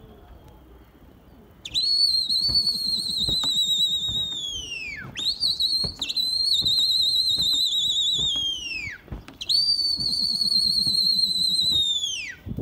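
Pigeon keeper's loud human whistle calling to his flying flock: three long, warbling whistles, each dropping in pitch as it ends, starting about two seconds in.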